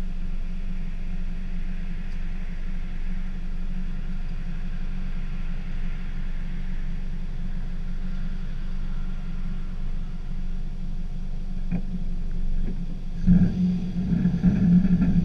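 Car engine idling steadily as a low, even hum. About 13 seconds in it turns louder and uneven.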